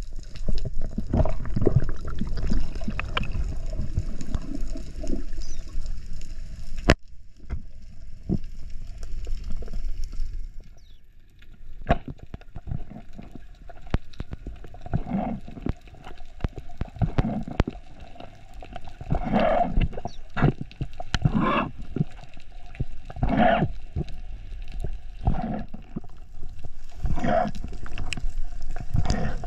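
Sea water gurgling and sloshing around the camera, changing abruptly about seven seconds in, then a run of short, irregular splashy bursts.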